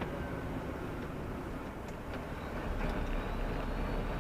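Heavy goods lorry driving, its engine and road noise making a steady low rumble.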